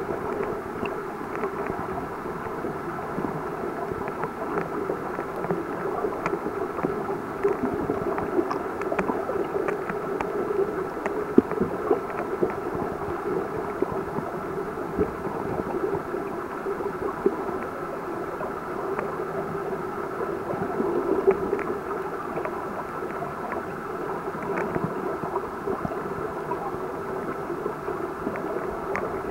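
Steady, muffled water noise picked up by a submerged camera, dull and without any high end, with scattered small clicks and a few louder taps throughout.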